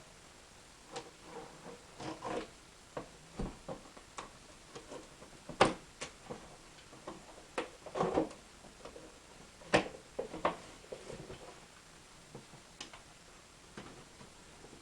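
Packaging being handled and opened by hand while an air filter stack is unboxed: irregular clicks, taps and short rustles, with a sharper knock about six seconds in and another about ten seconds in.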